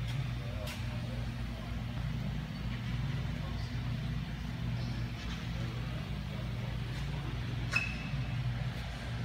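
A vehicle's engine idling, heard from underneath the car as a steady low hum, with a couple of light clicks, the sharpest near the end.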